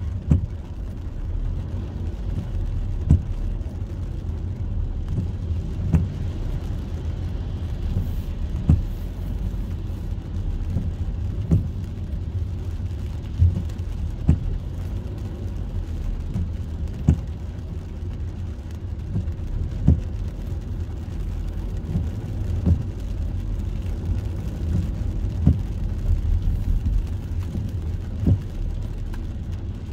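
Steady low road and tyre rumble of a car driving on wet pavement, heard from inside the cabin, with a short thump from the windshield wipers about every three seconds.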